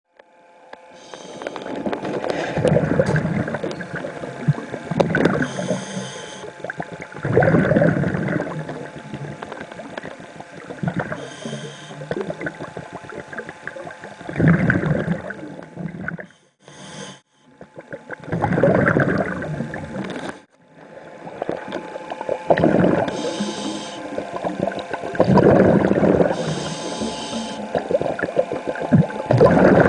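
Water sloshing and gurgling around an underwater camera, swelling and fading in irregular surges every few seconds, with a short break about halfway through.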